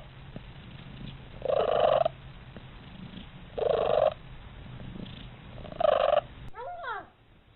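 Domestic cat purring steadily, broken by three loud, harsh, rasping calls about two seconds apart. Near the end comes a short meow.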